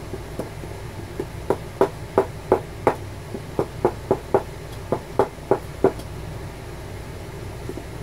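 A leather battery case with the battery still inside is knocked repeatedly against the edge of a wooden block to shake the old cell loose. There are about fourteen dull knocks at roughly three a second, stopping about six seconds in, over a steady low hum.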